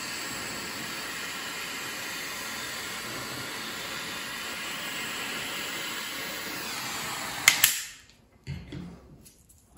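Small gas torch burning with a steady hiss while heating thin brass wire to anneal it. Near the end a sharp click, and the hiss cuts off.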